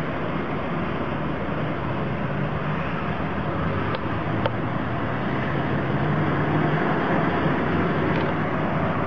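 Steady road-vehicle noise: engines and tyres running on a road, with a constant low engine hum and two faint ticks in the middle.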